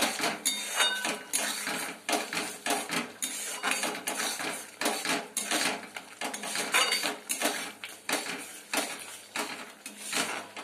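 A spatula stirring and scraping frying masala around a metal kadai in quick, repeated strokes, the spice paste being turned in hot oil so it doesn't catch.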